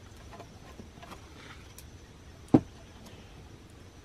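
A single solid knock about two and a half seconds in, as a piece of firewood is set down, with a few small ticks over faint background noise.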